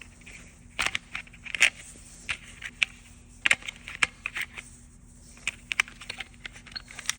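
Irregular clicks, taps and short scrapes of a thermostat being handled and opened, plastic parts clicking against each other.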